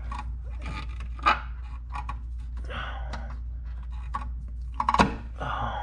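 Hand fumbling behind an engine's intake manifold to pull a vacuum line or cap off a port: irregular rustling and scraping, with a sharp click about a second in and another near the end, over a steady low hum.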